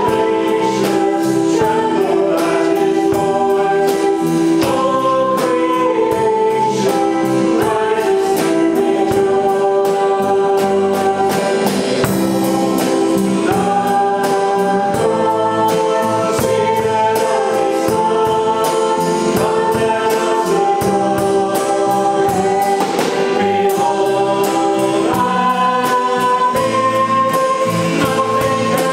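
Live worship band playing a congregational song: a woman and a man singing the melody together over a drum kit with a steady cymbal beat, electric bass and keyboard.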